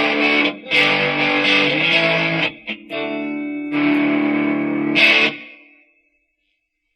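Electric guitar played through a BOSS Blues Driver BD-2 overdrive pedal: distorted chords and short riffs with brief breaks, ending in a final strummed chord about five seconds in that rings out and fades to silence.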